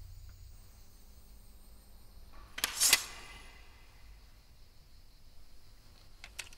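A sword sliding against its scabbard in one short swish about three seconds in, followed by a faint metallic ring. Two light clicks come near the end.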